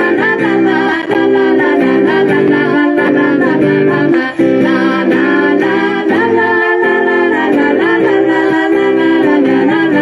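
Women singing a Mandarin pop song with acoustic guitar accompaniment, amplified through a PA system.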